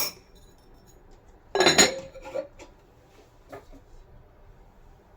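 Kitchen pots and utensils clattering once, about one and a half seconds in, followed by a few light clinks.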